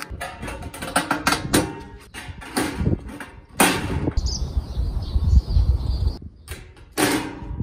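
Stainless steel gastronorm pan and small metal vent parts handled with gloved hands: a run of clicks, taps and scrapes of metal, with louder knocks about three and a half and seven seconds in.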